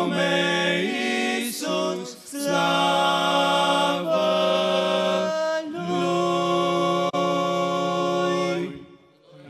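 Male vocal quartet singing a cappella in harmony: the hymn's closing line, sung in long held chords, the last chord sustained about three seconds before it stops shortly before the end.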